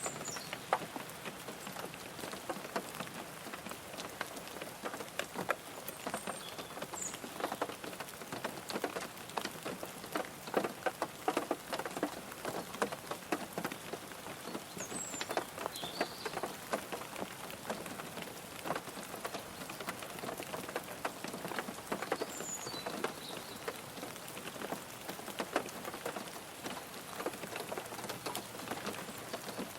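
Rain falling on a car's roof and glass, heard from inside the car: a steady patter of many drops with sharper individual drop ticks scattered through it. A few short high chirps come through now and then.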